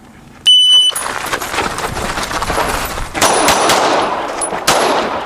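A competition shot timer beeps once, then a pistol fires a rapid string of shots. Steel targets ring with thin high pings as they are hit.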